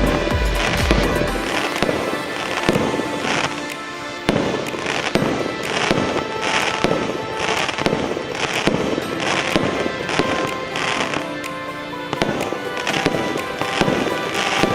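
A 1-inch, 64-shot fireworks cake firing in a steady run of shots, about two a second, over background music.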